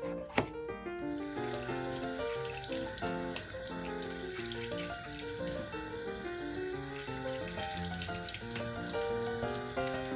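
Tap water running steadily into a sink from about a second in, over background piano music; a single knife knock on the cutting board just before the water starts.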